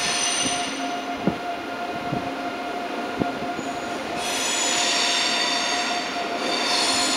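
Train wheels squealing on the rails: a shrill squeal at the very start and again from about four seconds in, over a steady electrical hum, with a few sharp knocks in between.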